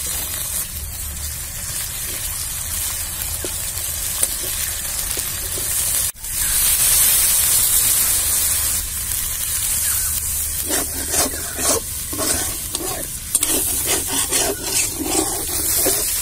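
Sliced onions and ginger-garlic paste sizzling in hot oil in a black karahi, cut off briefly about six seconds in and louder after. In the second half a metal spatula scrapes and stirs through the pan in repeated strokes.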